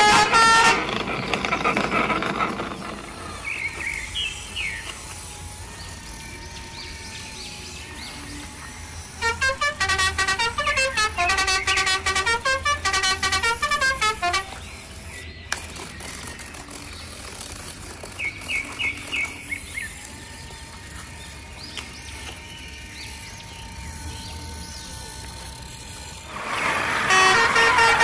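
Electronic toy-truck sound effects: loud horn-like toots at the start and again near the end, a short beeping tune in the middle, and a few brief chirps over a steady low hum.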